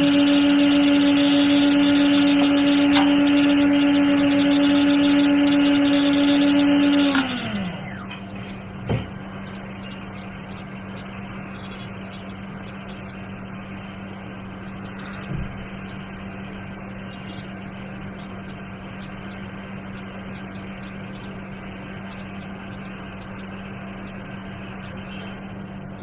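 Hot air rework station blower running with a steady hum and air hiss, then winding down with falling pitch about seven seconds in as it is switched off. A quieter steady hum carries on, with a sharp click a couple of seconds after the wind-down.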